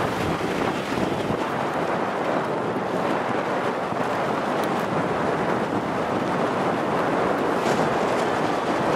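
Wind blowing across the microphone together with the wash of choppy water, a steady rushing noise.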